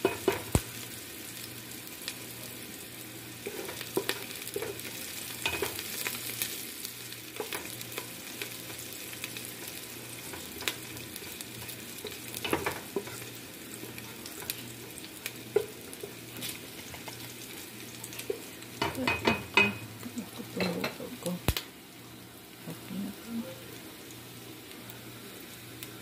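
Chopped onion and garlic sizzling in oil in a nonstick pot while a wooden spoon stirs and knocks against the pan, being sautéed until they start to brown. The spoon knocks come now and then, with a cluster of them about twenty seconds in.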